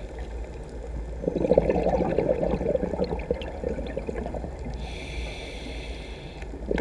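Scuba diver breathing through a regulator underwater: a bubbling exhale starts about a second in and lasts a couple of seconds, then a hissing inhale comes near the end.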